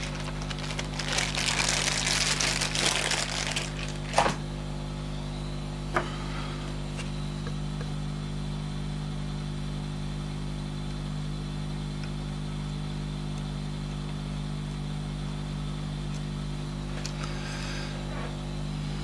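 Solder paste being scraped and wiped off a small circuit board with a metal tool for the first few seconds, ending in a sharp click about four seconds in, with one small tick a couple of seconds later. Under it and after it, a steady low hum of running bench equipment.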